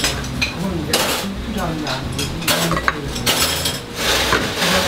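Dishes and metal cutlery clinking and clattering on a restaurant table, with several sharp knocks and clinks scattered through.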